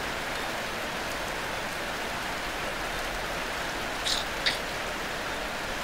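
Steady rain falling, an even hiss, with two brief high-pitched sounds about four seconds in.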